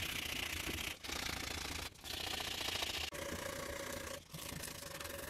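Hand-sanding a steel part of a small bear trap clamped in a vise, with abrasive paper rubbed back and forth over the metal in about five long strokes of roughly a second each.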